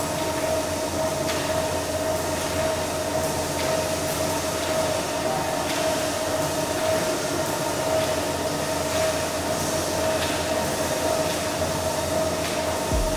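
A steady mechanical hum and hiss with a constant mid-pitched whine that does not change, and a few faint irregular knocks.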